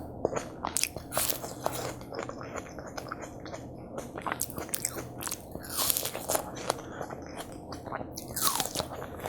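Close-miked biting and chewing of watermelon: crisp, wet crunches and juicy chewing clicks in an irregular stream, with two longer, louder wet stretches about six and eight and a half seconds in.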